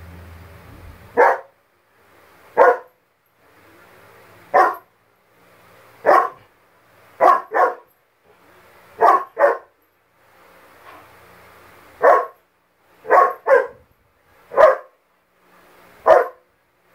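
German Shepherd dog fear barking at her own shadow: about thirteen short barks, some single and some in quick pairs, spaced every one to two seconds.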